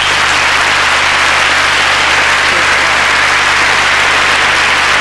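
Large audience applauding steadily, over a faint low hum.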